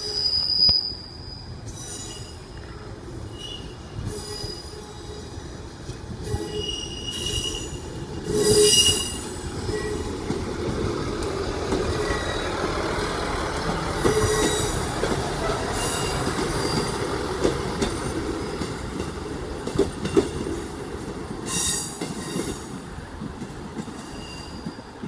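Northern Class 158 diesel multiple unit 158849 pulling out and passing close by, its underfloor diesel engines running over a steady rumble of wheels on rail. Several brief high wheel squeals come through, the loudest about nine seconds in. The sound fades near the end as the train draws away.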